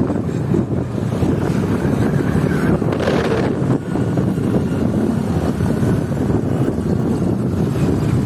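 Wind buffeting the microphone of a moving vehicle on the road, a loud, steady rumbling rush with a brief hissier gust about three seconds in.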